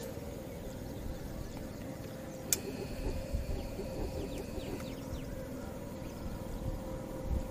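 Faint open-air ambience over a flooded marsh: a low rumble and a steady faint hum. A sharp click comes about two and a half seconds in, followed by a few faint high chirps.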